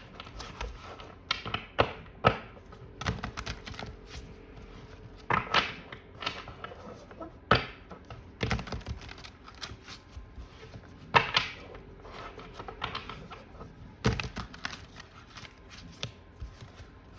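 A deck of tarot cards being shuffled by hand: irregular clicks and slaps of the cards, some louder than others.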